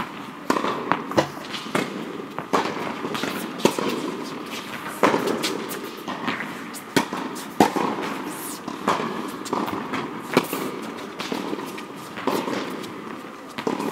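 Tennis balls being struck by rackets and bouncing: sharp pops at irregular spacing, roughly one a second.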